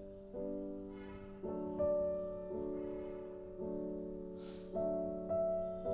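Background music of slow piano chords, a new chord struck about once a second and each one fading away before the next.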